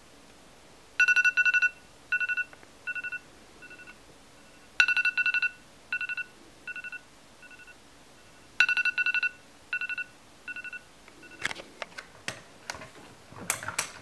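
Smartphone alarm ringing: rapid pulsing beeps in short groups that start loud and fade, the whole pattern repeating three times. Near the end the alarm gives way to several sharp clicks and rustling as the phone and things beside it are handled.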